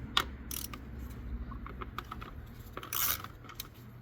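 Scattered light metallic clicks and clatter of hand tools being handled under the hood, with two short scraping sounds, about half a second in and about three seconds in.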